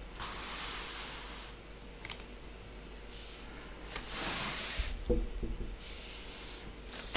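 Soft rustling and rubbing as a diamond painting canvas is handled and shifted about, in several stretches a second or two long, with a few low bumps near the end.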